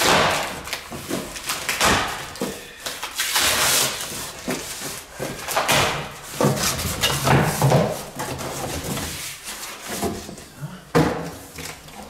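Cardboard shipping box being torn open by hand: packing tape ripping off and the cardboard flaps being pulled up and folded back, a run of rips, rustles and dull knocks.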